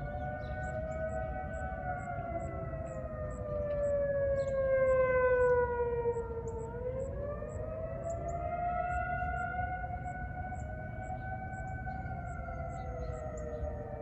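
Several distant outdoor warning sirens, including Federal Signal 2001s, sounding together during a test, their tones overlapping. Most hold a steady alert tone that drifts slowly as the sirens rotate. The loudest winds down about four seconds in and climbs back up near the middle, as in the wailing attack signal.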